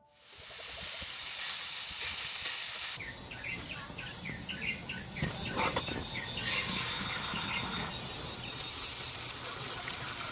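Cicadas and other insects calling: a steady high buzz, changing about three seconds in to a fast, evenly pulsing chirping that carries on.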